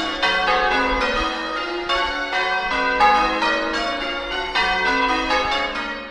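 Church bells ringing at close range, several bells struck one after another in quick succession, their tones overlapping and ringing on.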